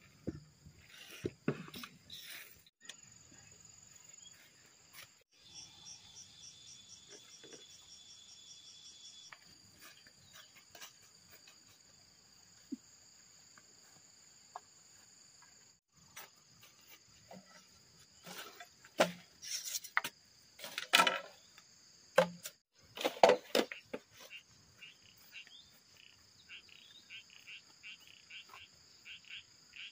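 Insects chirring in steady high tones throughout, with a cluster of sharp knocks from bamboo work with a machete about twenty seconds in, the loudest sounds. Near the end a quick repeated ticking call joins in.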